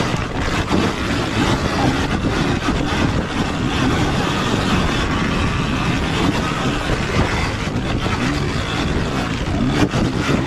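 Surron Ultra Bee electric dirt bike ridden over rocky ground: a motor whine that rises and falls with the throttle, under a constant clatter of the chain, suspension and tyres striking rock.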